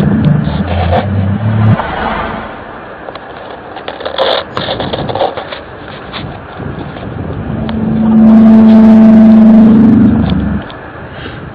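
A loud, steady, low drone with overtones, one of the so-called strange sounds in the sky. It breaks off under two seconds in and sounds again from about eight to ten and a half seconds. Between the two, scraping and clicking noise carries on.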